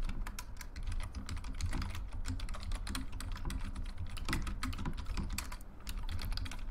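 Typing on a computer keyboard: a quick, irregular run of key clicks over a low steady hum.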